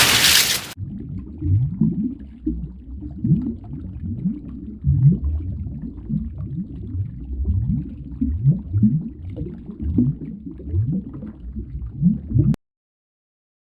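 Low water gurgling: a steady run of short bubbling blips, each rising in pitch, a couple a second. It follows a loud rush of noise that cuts off within the first second, and the gurgling stops abruptly near the end.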